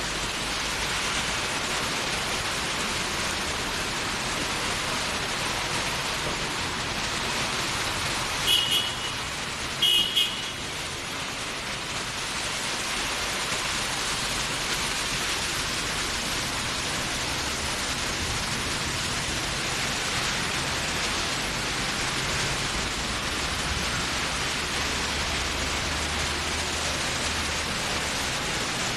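Steady rain, a constant even hiss. Two quick pairs of short high-pitched beeps come through about eight and ten seconds in.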